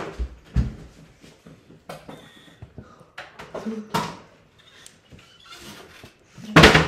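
Scattered knocks, clicks and light clatter of kitchen things being handled, with a louder sudden burst near the end.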